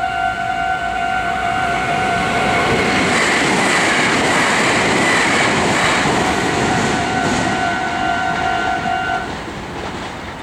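A Japanese level-crossing warning bell rings with a steady rapid pulse while a Meitetsu electric train passes. The train's rush and wheel clatter build about two and a half seconds in and swamp the bell for a few seconds. The bell stops about nine seconds in and the train noise fades away.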